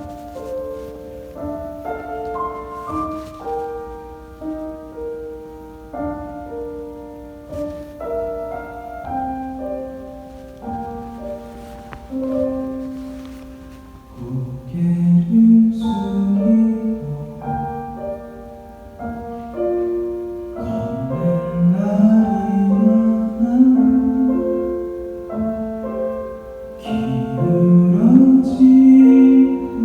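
Solo piano plays a slow ballad introduction, and about halfway through a male voice begins singing over it, growing louder toward the end.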